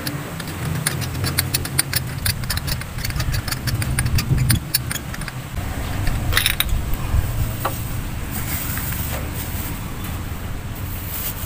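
Quick metallic clicking and rattling of a spark plug socket and extension being worked by hand in a car's engine bay, thickest in the first half, over a steady low hum.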